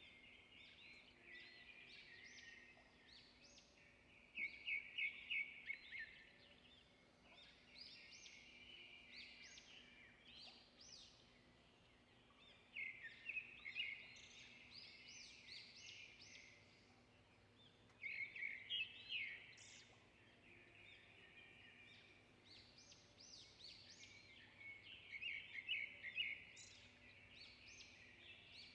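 Faint bird chirping: short, rapid runs of high chirps come in phrases of a second or two, every few seconds.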